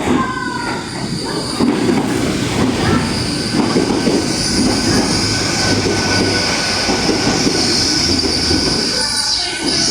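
Train moving slowly through the station, a steady high-pitched wheel squeal over the low rumble of the train on the rails.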